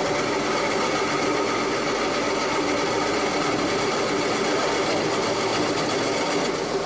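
CNC turning lathe running steadily with a constant hum. A higher hissing layer, likely from the tool cutting, drops out near the end.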